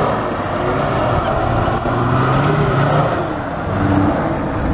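Off-road 4x4 engine running under load, its revs climbing, holding, dropping about three seconds in, then rising again.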